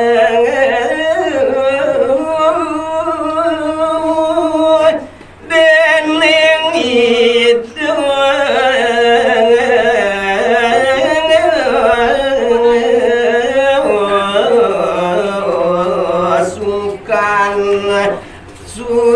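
A man singing a line of Balinese pupuh Sinom solo into a microphone, holding long ornamented notes that waver in pitch, with short breaths about five seconds in, again near eight seconds, and near the end.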